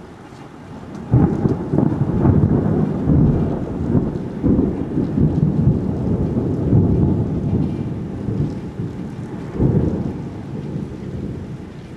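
Thunder: a sudden crack about a second in that rolls on as a long, uneven rumble, with a second loud peak near the end before dying away.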